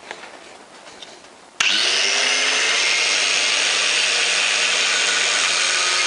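Hand-held angle grinder switching on about a second and a half in and running steadily at full speed, loud.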